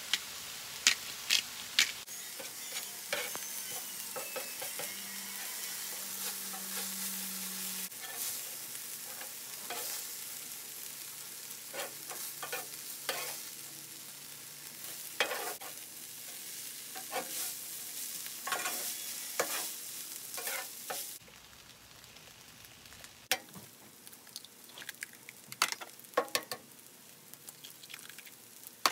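Fried rice, chicken and vegetables sizzling on a flat-top gas griddle, with a metal spatula scraping and tapping on the steel surface as the food is stirred. The sizzle drops off about three quarters of the way through, and the spatula strokes go on.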